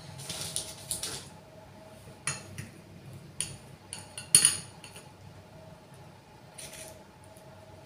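Metal forks clinking and scraping against a small ceramic bowl and a plate as Florentines are dipped in melted chocolate and lifted out: a scatter of short, light clinks, the loudest a little past four seconds in.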